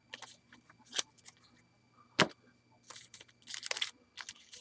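Baseball cards and a plastic card-pack wrapper being handled: several sharp clicks and snaps, the loudest a little over two seconds in, with short crinkling rustles.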